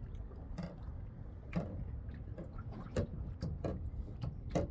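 Small irregular knocks of water slapping against a kayak hull, about six in a few seconds, over a steady low rumble.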